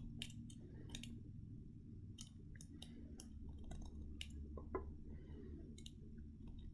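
Faint, irregular clicks and light scraping from fingernails and a metal sculpting tool picking the papery seed coat off an avocado stone.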